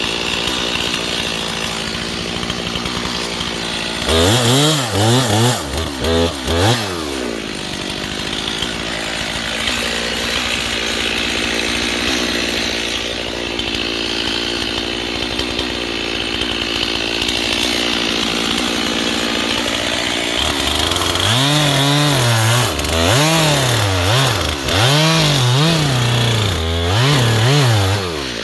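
Chainsaw engine running steadily at idle, revved up and down repeatedly in two spells: one about four seconds in, and a longer one from about twenty-one seconds until near the end.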